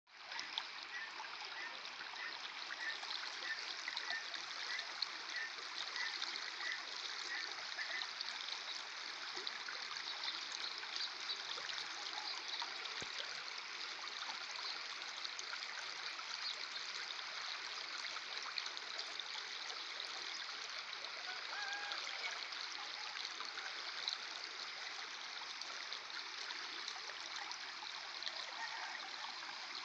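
Muddy rainwater runoff flowing steadily over a breached earthen field bank into a flooded field. A faint chirp repeats about twice a second for the first several seconds.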